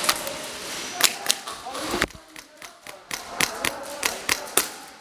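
Irregular sharp snaps and knocks, about two or three a second, from airsoft play in a plywood-walled arena. Shots, BB hits on the plywood and gear knocks cannot be told apart.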